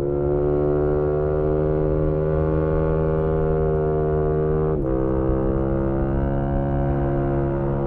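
2018 Yamaha MT-125's single-cylinder four-stroke engine through a GPR aftermarket exhaust, heard onboard while riding. The revs climb slowly under throttle, then about five seconds in a gear change briefly cuts the sound and drops the pitch, which then holds steady.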